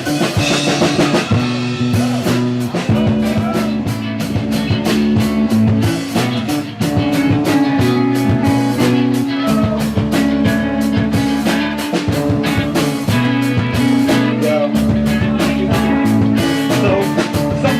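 A live band playing an instrumental groove with drum kit, guitar and bass, the drums keeping a steady beat.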